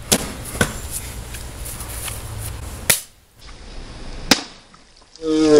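Sharp hits from a hand weapon striking targets, four loud ones spread irregularly over about four seconds with fainter knocks between. A voice starts near the end.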